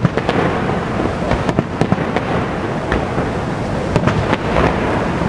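A fireworks display with aerial shells bursting in a string of bangs and crackling, over a steady rushing roar from the waterfall.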